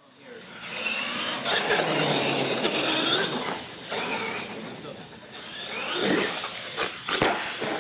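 R/C monster truck's motor whining, its pitch rising and falling with the throttle, over the noise of its tyres running on concrete. There is one sharp knock near the end.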